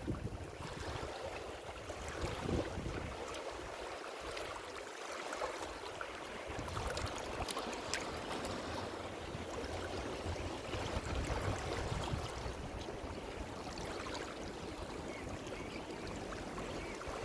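Ocean surf washing in, a steady hiss of water. The deep rumble of the waves drops away a couple of seconds in and builds back about seven seconds in.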